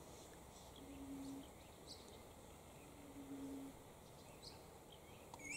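Faint low, mellow coo of a bronzewing pigeon, one single note about every two seconds, with a few faint high chirps of small birds.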